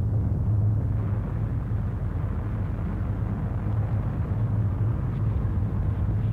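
Outdoor ambience recorded through an apartment window and filtered in real time: a steady low rumble with a dull hiss above it and no distinct events.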